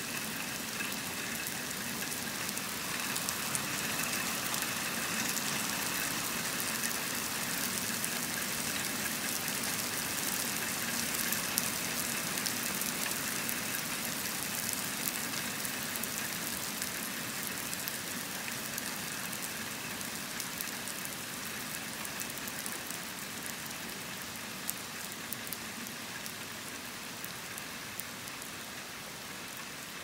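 Torrential downpour: a dense, steady hiss of heavy rain hitting the ground, with many fine drop ticks. It grows a little heavier a few seconds in and eases slowly toward the end.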